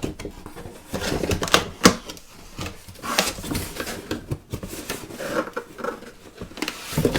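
Cardboard box being opened by hand, its flaps pulled open and the contents handled: an irregular string of scrapes, rustles and knocks.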